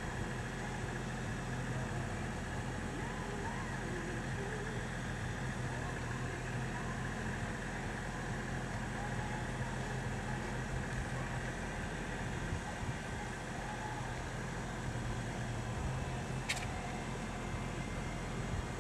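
Steady outdoor background noise with a low hum, and a single sharp click near the end.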